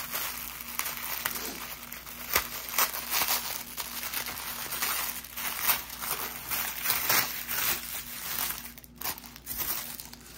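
Packaging crinkling and rustling in irregular bursts as a wrapped item is handled and unwrapped by hand.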